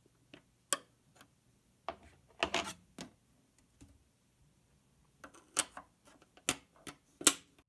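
Irregular sharp clicks and knocks of a long T15 Torx screwdriver and hands on the plastic case of a Macintosh Plus as its back screws are taken out. About a dozen clicks, bunched about two and a half seconds in, with the loudest near the end.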